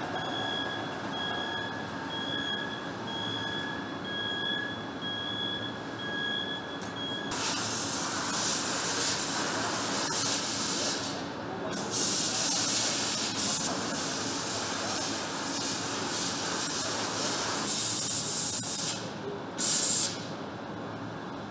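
Factory machinery in a leather-cutting shop. A steady machine whine with two high tones runs for about the first seven seconds, then gives way to loud hissing air that comes and goes in surges.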